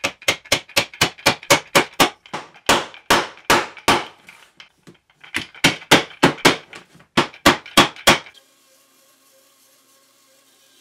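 Wooden mallet striking half-inch wooden dowel hinge pins, driving them into the knuckles of hardwood hinges. The mallet lands in two runs of quick blows, about three a second, with a short pause near the middle. The blows stop about 8 seconds in, leaving a faint steady hum.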